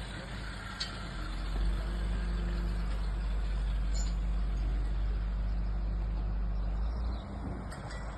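Heavy diesel engine of a construction vehicle running steadily with a deep rumble, growing louder about a second and a half in and easing off near the end.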